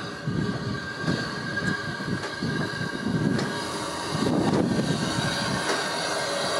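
Andrew Barclay industrial saddle-tank steam locomotive drawing in slowly, its exhaust beating about three times a second and growing louder as it comes closer. A faint steady squeal and a few clanks sound over the beat.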